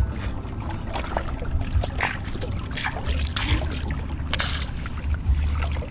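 Water splashing and dripping in rocky shallows as a squid is lifted out of the water by hand, with irregular splashes throughout and a steady low rumble underneath.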